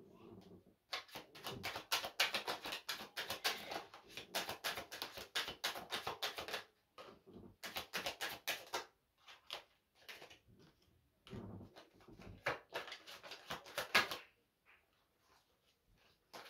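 A deck of oracle cards being shuffled by hand: a dense, rapid clicking of cards flicking against each other, in three bursts with short pauses between.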